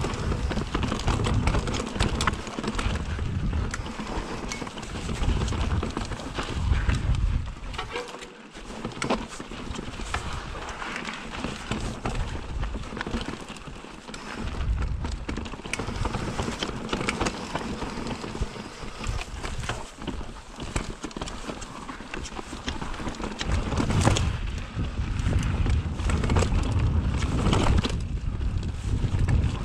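Mountain bike rolling over rough stone paving: tyres and bike rattling and knocking continuously on the rocks, with a low rumble of wind on the microphone that gets heavier near the end.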